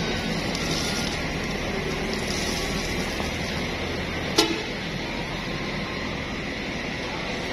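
A DAMRI intercity coach's diesel engine running as the bus drives away, a steady low hum that drops off near the end. A single short, sharp sound comes about four seconds in and is the loudest moment.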